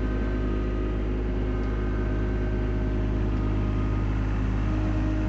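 Skid steer engine running steadily as the machine drives forward to take its first scoop of sand, a constant low drone with a few steady tones over it.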